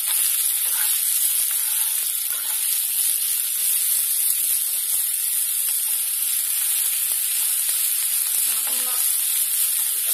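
Sliced onions sizzling in hot oil in a non-stick pan, a steady hiss with faint crackles, stirred now and then with a spatula. They are being fried toward golden brown.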